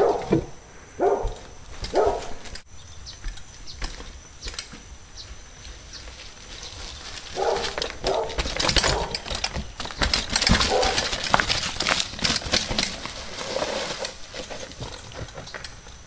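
Mountain bike and tyres clattering and crunching over wooden trail features, log steps and gravel, with dense knocks heaviest in the middle. Short calls about a second apart near the start, and a few more later.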